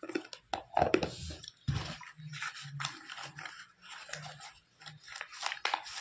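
Close-up crunchy chewing of a dry piece of multani mitti (Fuller's earth clay), a run of irregular crisp crunches.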